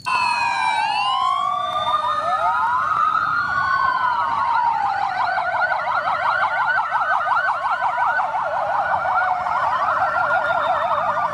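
Several emergency-vehicle sirens sounding together: slow rising and falling wails overlap at first, then a fast warbling yelp takes over after a few seconds.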